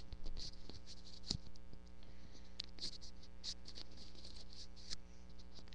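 Steady electrical hum, with scattered light clicks and rustles of handling.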